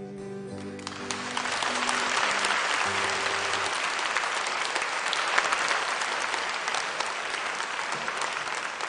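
Audience applauding, starting about a second in and holding steady, as the last sustained notes of the song's accompaniment ring out and fade.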